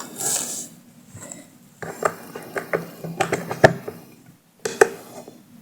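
A run of light, irregular clicks and taps, like small hard objects being handled, with a sharper tap near the end.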